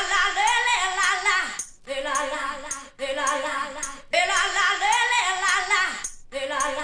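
Opening of a music track: sung vocal phrases with a wavering pitch, repeated with short breaks between them, over light high-pitched percussion ticks and no bass.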